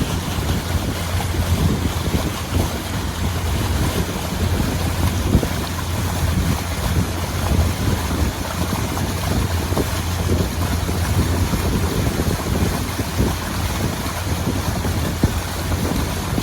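Pontoon boat under way: its motor running with a steady low drone, under wind buffeting the microphone and the rush of water.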